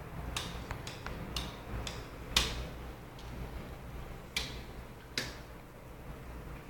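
A series of sharp clicks at irregular spacing, about seven in all, the loudest about two and a half seconds in, over a steady low hum.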